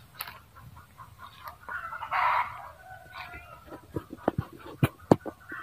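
Red junglefowl cackling: a series of clucking calls. Several sharp cracks near the end are the loudest sounds.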